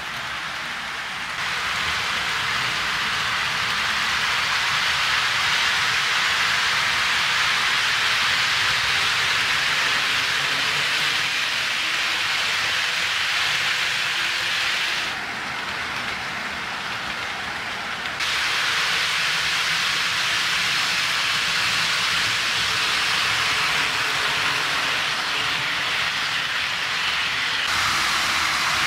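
HO scale model freight train rolling along sectional track: a steady hissing rattle of many small metal wheels on the rails, dipping quieter for a few seconds past the middle.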